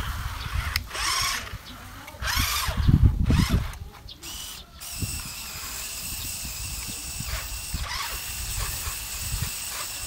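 High whine of the small electric motors of a homemade remote-control toy fire truck driving and pumping water. It comes in louder bursts for the first few seconds, then runs steadily.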